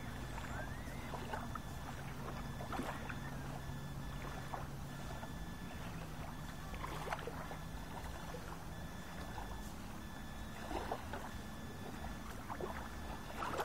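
Small waves lapping and splashing at a lakeshore, with a steady low engine hum, like a motorboat's, that steps up in pitch about five seconds in.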